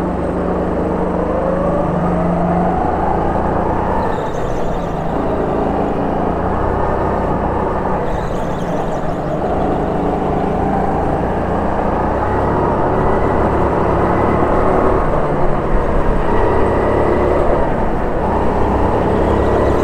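Onboard sound of an indoor kart's motor under way, its pitch rising and falling several times as the kart speeds up along the straights and slows for the corners.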